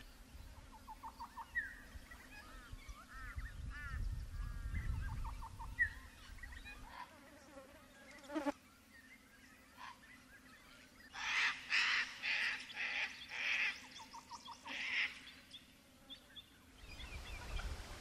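Galahs calling: a few soft, short chirps at first, then a run of louder, harsh screeches after about 11 seconds.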